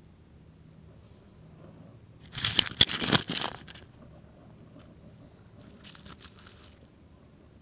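Fledgling robin shuffling on gravel right at the camera: a burst of close crackling and crunching scuffs about two seconds in, lasting about a second and a half, then a fainter crackle about six seconds in.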